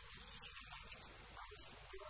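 Quiet room tone: a steady hiss with faint, indistinct voices.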